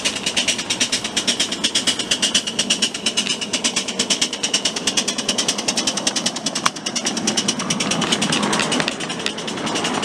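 Ride-on miniature locomotive running along 7¼-inch gauge track with a fast, even clatter of about ten beats a second. A sharp click comes near the end of that, and the clatter gives way to a rougher, steadier rolling noise.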